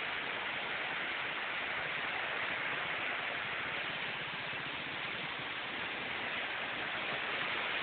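A river in flood, its fast, churning muddy water rushing with a steady hiss.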